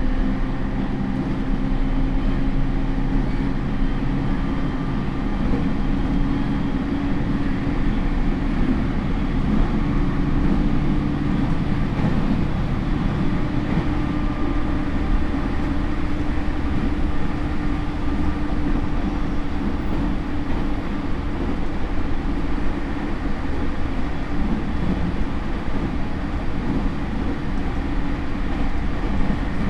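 Interior running sound of a JR E231 series suburban electric train's motor car (Hitachi IGBT inverter): a steady rumble of wheels on rail with a low motor and gear hum that holds a few steady tones.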